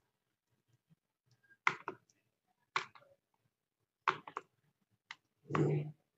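Chopsticks clacking against a bowl while noodles are tossed with their seasoning: four short clicks about a second apart, the last one fuller and duller.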